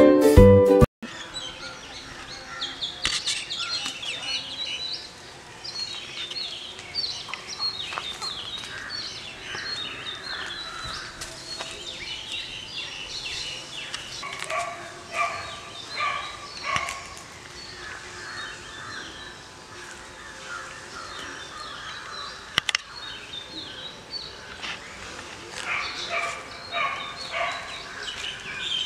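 Birds calling and chirping in the trees: many short, high calls overlapping. A stretch of louder, lower calls comes about halfway through, and a single sharp click comes a little later.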